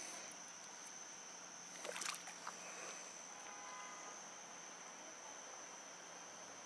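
Crickets trilling, a steady high-pitched drone, with a brief rustling clatter about two seconds in.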